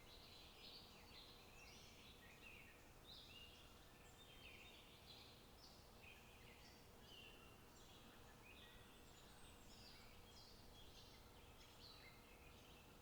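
Faint chorus of small birds chirping and twittering, many short overlapping calls, over a low steady outdoor rumble.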